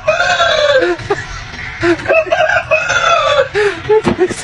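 Rooster crowing more than once, long drawn-out calls that drop in pitch at the end.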